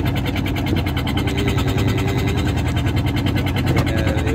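A fishing boat's engine running steadily, with a fast, even chugging pulse.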